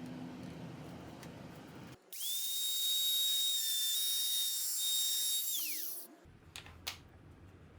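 A high-speed electric power tool, used in woodworking. It opens with a low rumbling work noise, then about two seconds in the motor starts with a high steady whine. The whine runs for about three seconds and winds down with falling pitch, followed by a couple of light knocks.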